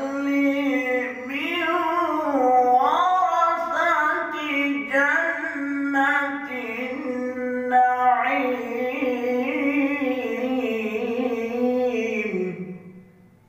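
Male voice reciting the Quran in the melodic tajweed (tilawat) style, with long held notes and ornamented, sliding pitch. The phrase ends near the end with a falling note that fades away.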